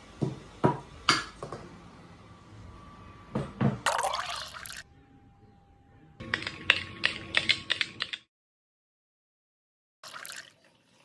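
Ceramic plates and dishes clinking as they are set down on a table: sharp clinks in two clusters, with a short splashy liquid sound, like pouring, about four seconds in. The sound cuts out completely twice.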